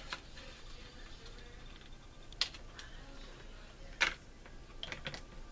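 Scattered sharp clicks and taps of hard plastic model-kit parts being handled and pressed together, about six in all, the loudest about two and a half and four seconds in.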